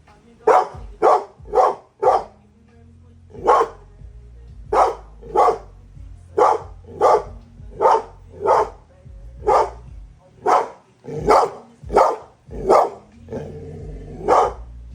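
Pit bull puppy barking over and over, about eighteen barks, some in quick pairs and some a second or more apart: alarm barking set off by the doorbell.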